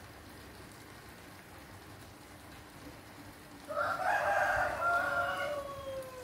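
A rooster crowing once: one long call of nearly three seconds, starting about two thirds of the way in and dropping in pitch as it ends. Beneath it, a steady hiss of water from the aquarium pump.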